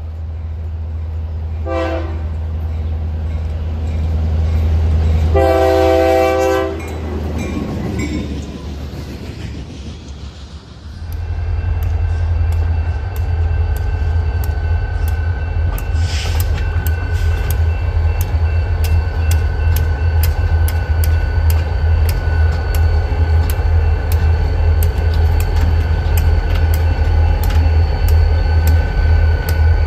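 Distant IORY diesel locomotive horn sounding a short blast and then a longer one over a low engine rumble. After a cut, a diesel locomotive running slowly past close by, with a steady low engine drone and evenly spaced clicks of its wheels over the rail joints.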